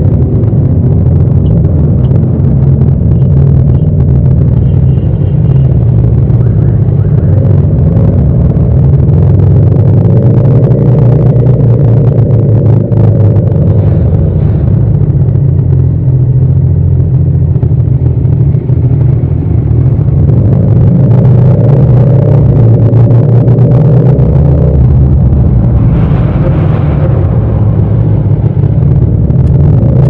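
Yamaha MT-07's 689 cc parallel-twin engine running at low revs under a rider in slow city traffic: a steady rumble whose pitch rises and falls a little with the throttle, climbing as the revs go up near the end.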